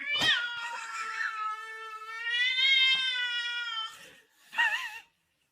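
A cat meowing: one long, drawn-out meow of about four seconds, followed near the end by a short wavering meow.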